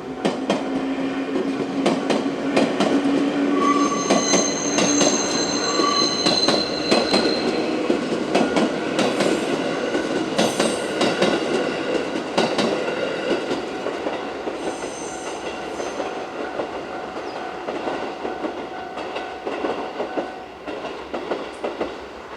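A six-car 221 series electric train passing over a level crossing: wheels clacking rapidly over rail joints with brief squeals, loudest in the first half and then fading as the train moves off. A steady level-crossing warning bell tone sounds under it and stops near the end.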